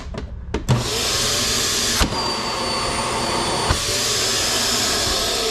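A built-in central vacuum system with a sweep-in inlet, switched on with a click about a second in and running with a steady loud rush of suction. For about two seconds in the middle a thin high whistle rides over it, set off and ended by clicks. Near the end the motor's pitch begins to fall as it winds down.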